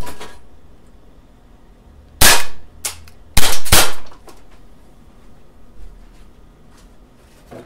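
Umarex Makarov ULTRA CO2 blowback BB pistol firing three shots: one about two seconds in, then a quick pair about a second later, with a fainter click between them. A few small ticks follow.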